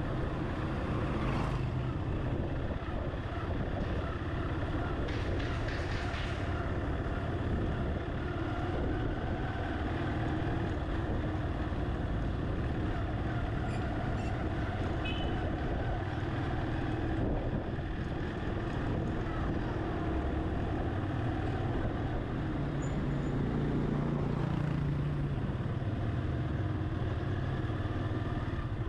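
Steady low rumble of a vehicle's engine and tyres driving slowly along a street. A little past two-thirds of the way through, an engine note rises and falls.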